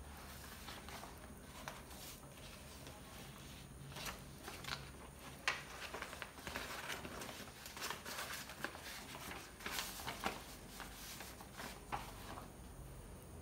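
Faint rustling and light clicks of paper being handled, scattered through the middle stretch, over a low steady room hum.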